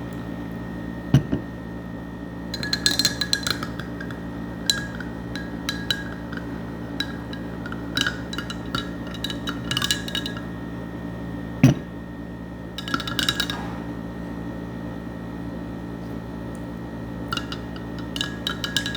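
A spoon clinking against a drinking glass in repeated bursts while stirring a liquid, the glass ringing after each cluster of taps. Two dull thumps, the loudest sounds, come about a second in and just before the middle, over a steady low hum.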